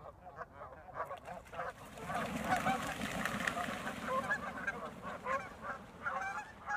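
Canada geese honking repeatedly as a flock takes off from the water. From about two seconds in, the rush of wingbeats and splashing swells under the honks for a couple of seconds, then the calls carry on as the geese fly off.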